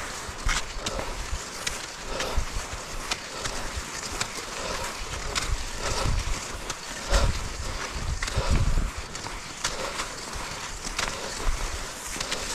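Skis sliding and scraping over snow, a steady rushing hiss broken by irregular clicks and knocks.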